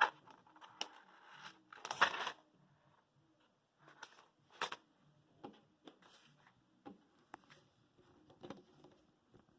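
Handling noises from a cable and its plastic: brief crinkling rustles and light clicks and taps. The loudest rustles come at the very start and about two seconds in, and scattered faint ticks follow.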